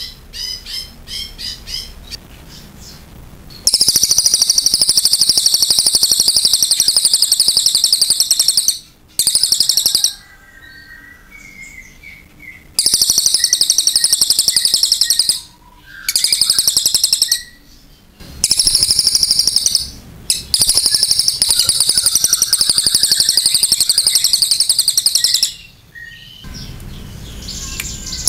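Crested jay (cililin) singing: long, high, fast-pulsed trilling phrases of about two to five seconds each, broken by short pauses with softer, lower notes in between. The first few seconds hold a run of short repeated notes.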